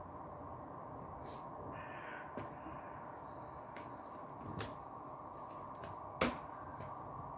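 Outdoor garden ambience with a steady background hum and a few brief bird calls, broken by footsteps and sharp knocks as someone crosses a paved terrace; the loudest knock comes a little after six seconds in.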